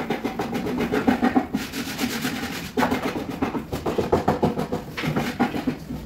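Portable piston air compressor running: a fast, even rattling chug with a steady hum under it.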